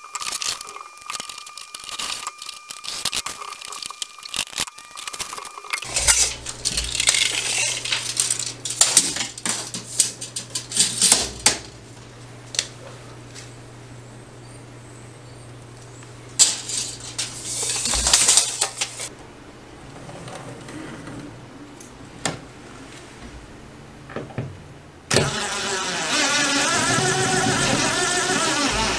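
Scattered clicks and knocks of hands working mounting hardware. Near the end a cordless drill starts up and runs steadily, driving a screw through a TV wall-mount bracket into the wall.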